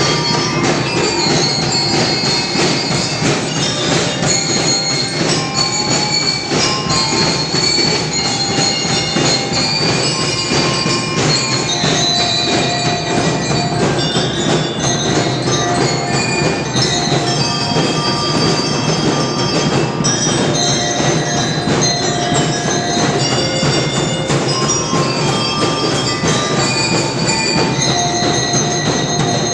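School drum and lyre band playing: a dense, steady drum beat under bell lyres ringing out a melody in high, clear notes.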